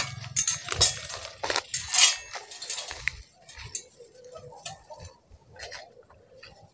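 Dry leaves and twigs crackling and rustling under someone moving through a durian orchard. A dense run of sharp crackles comes in the first three seconds, then thins out to faint scattered ones.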